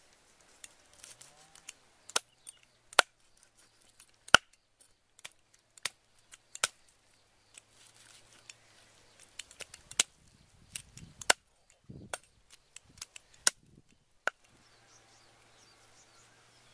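Cleaver chopping grilled chicken legs on a round wooden chopping block: a run of sharp, irregularly spaced chops, about ten loud strikes with lighter knocks between, stopping about 14 seconds in.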